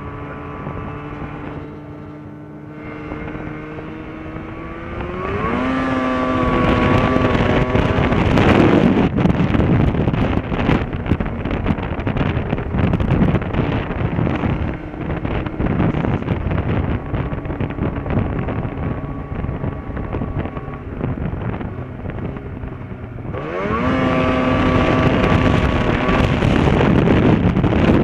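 Snowmobile engine running under way, its pitch rising as it accelerates about five seconds in and again near the end, with track noise and wind buffeting the microphone at speed.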